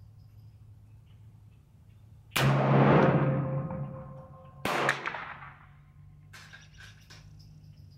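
Two rifle shots about two seconds apart from a 7.62x39 AR-style pistol with a 7.5-inch Bear Creek Arsenal upper, each with a long echoing tail.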